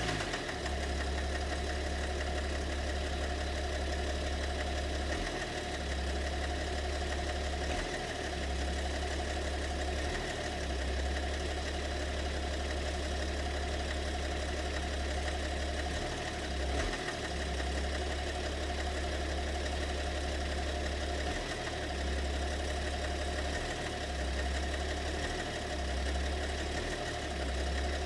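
BMW M57 3.0-litre straight-six diesel idling, a steady low drone that swells and dips every few seconds, with a mysterious knock in the engine that the owner cannot place and suspects may involve one or two cylinders.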